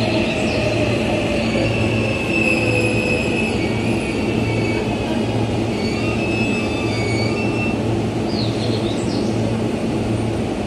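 Electric train moving along the platform, wheels squealing: a high squeal and a lower tone slowly falling in pitch over a steady rumble. A few short high chirps near the end.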